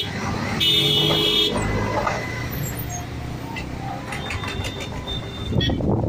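Road traffic: a vehicle horn sounds for about a second near the start, with fainter horns later, over steady engine and road noise. Near the end a rush of noise comes in.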